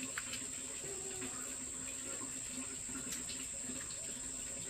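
Water running steadily, with a steady high-pitched insect drone behind it and a couple of faint clicks.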